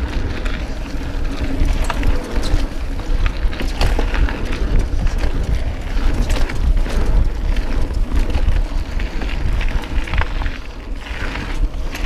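Canyon Spectral mountain bike riding fast down a dirt singletrack: wind buffets the camera microphone in a heavy rumble, while the tyres roll on the trail and the bike clicks and rattles over bumps.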